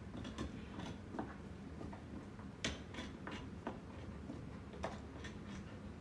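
Ceiling fan running: a steady low whir with irregular sharp clicks and ticks scattered through it.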